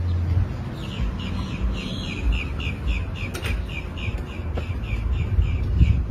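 A bird singing a long run of quick, repeated downward-slurred notes, about four a second, over a low rumble.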